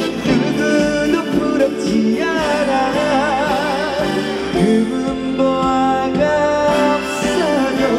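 Trot song music over a stage PA, with no words sung: a passage between sung lines, its melody held in wavering vibrato notes over a full backing band.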